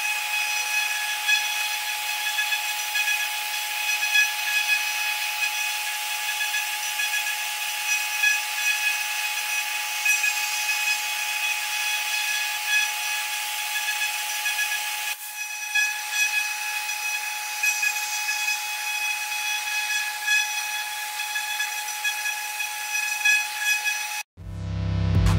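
High-speed CNC engraving spindle cutting brass: a steady high-pitched whine made of several fixed tones over a cutting hiss. It stops suddenly about a second before the end.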